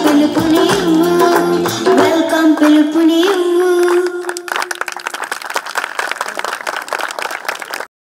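A song with singing plays as dance music, with a long held vocal note over a full backing. About halfway the bass and melody drop away to a thinner, noisier stretch, and the sound cuts off abruptly just before the end.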